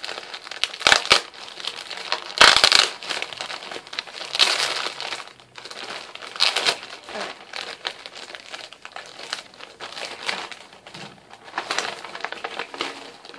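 Plastic mailing bag crinkling as it is pulled and torn open by hand, in irregular bursts, the loudest about two and a half seconds in.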